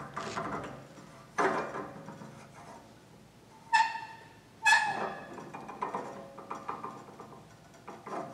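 Cement mixer's steel drive arbor, with its spur gear, being turned and slid by hand in its freshly poured lead bearings, tested for fit. Metal-on-metal rattles and scrapes that die away, with two ringing metal clinks about four and five seconds in.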